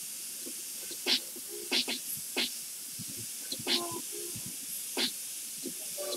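Airbrush hissing steadily with compressed air while spraying paint, broken by several short, sharper bursts at irregular moments.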